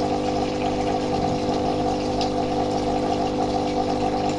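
Aquarium pump humming steadily.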